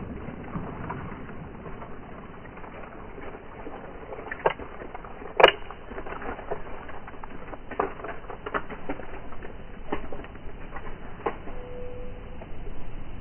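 Slowed-down audio of a revolver's hammer being thumbed back: a few sharp metallic clicks, the loudest about five and a half seconds in, over a low hiss, with lighter scattered ticks afterwards.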